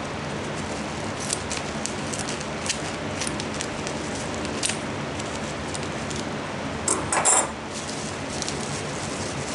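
Small scattered clicks and crinkles of hatching eggs and their bubble-wrap packaging being handled, with a louder rustle about seven seconds in.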